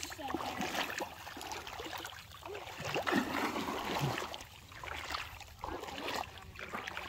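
Shallow seawater sloshing and trickling around the feet of a wading child.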